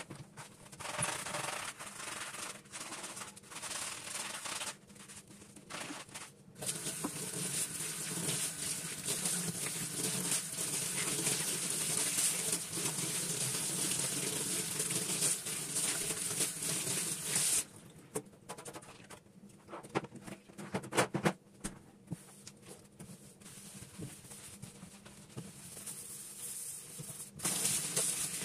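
Scrubbing noise, broken by short pauses early on, dropping about two-thirds through to quieter handling with scattered clicks, then resuming near the end.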